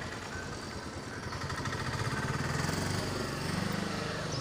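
A motor vehicle's engine running, its pitch rising and then falling back about three and a half seconds in.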